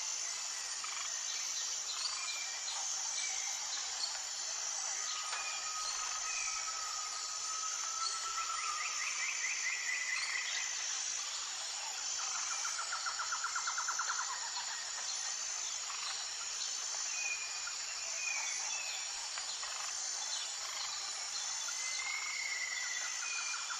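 Several wild birds calling outdoors in the morning: scattered chirps, one long whistled note, and two fast trills near the middle. All of it sits over a steady high-pitched insect drone.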